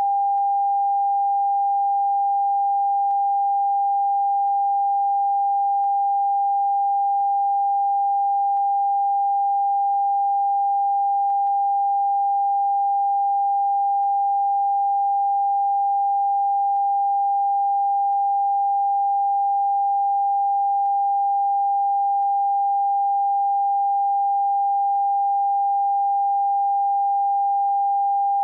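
Television test-card tone: a single pure, steady mid-pitched beep held unbroken at one pitch and level, the signal that broadcasting has ended for the day.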